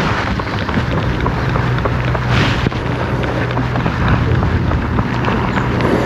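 Small boat motor running with a steady low hum, with wind noise on the microphone over it.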